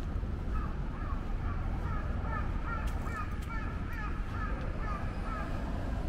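A run of short, repeated bird-like calls, one after another at a quick even pace, starting about half a second in and stopping about a second before the end, over a steady low street rumble.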